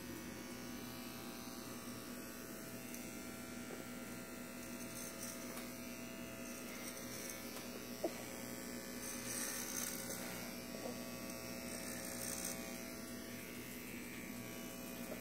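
Corded electric hair clippers buzzing steadily as they cut a child's short hair, the buzz growing a little louder a couple of times in the second half.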